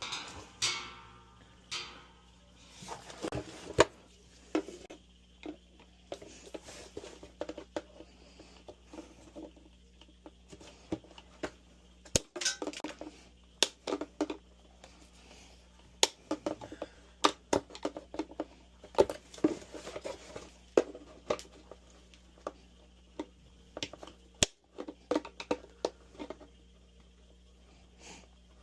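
Irregular clinks, knocks and rattles of tools and metal dryer parts being handled while the dryer is worked on, with a faint steady low hum underneath.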